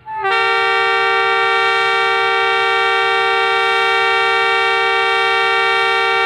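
ZCU-20 diesel locomotive's air horn sounding one very long, steady blast, a chord of two tones, starting about a quarter second in: the train's departure whistle.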